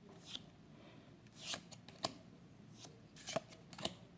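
Trading cards being slid and flipped over one another by hand, making about five short, faint swishes and snaps.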